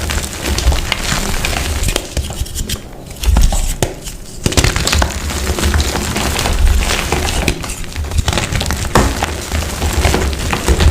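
Blocks of dyed, reformed gym chalk being crushed: dense crunching and crumbling with low thumps, thinning out briefly about three seconds in.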